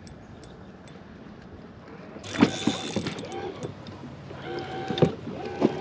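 Handling sounds in a fishing kayak: a few sharp knocks and rattles over a low hiss, starting about two seconds in.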